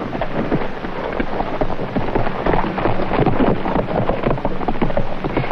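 Horses galloping past on a dirt street, a dense continuous clatter of hooves.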